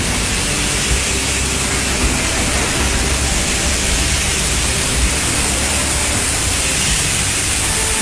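Steady, loud hiss of a shotcrete spraying machine blowing concrete through its nozzle with compressed air, over a low rumble.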